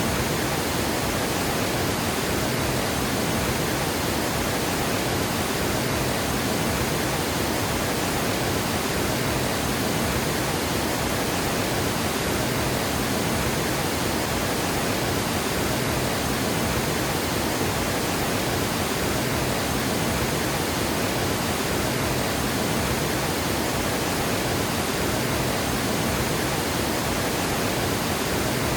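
Water pouring over a dam spillway, a steady, unbroken roar of rushing water.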